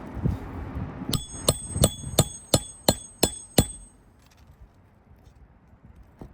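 Hammer striking a steel roof snake eight times in an even run, about three blows a second, each with a short bright metallic ring. It is driving a new nail under the shingle beside the old nail hole.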